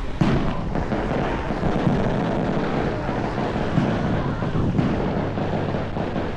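Wind buffeting the microphone over a dense outdoor rumble, with one sharp firework bang about a quarter second in.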